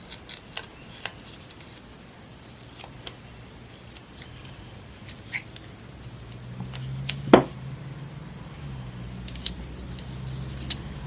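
Scissors snipping paper in a few short, irregular cuts, with one louder snip about seven seconds in. A low steady hum comes in about six seconds in.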